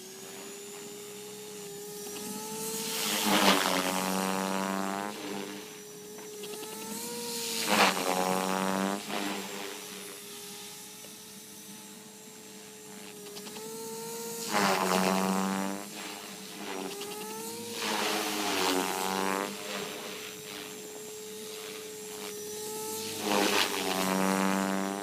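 Mini Protos electric RC helicopter running with a steady whine. Every few seconds a loud buzzing rattle swells for a second or two and dies away, five times in all. This is the bad sound, heard while the tail is wagging.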